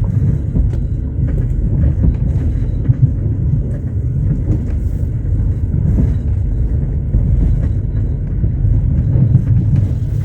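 Passenger train running on rails, a steady low rumble of wheels and carriage with faint, irregular knocks.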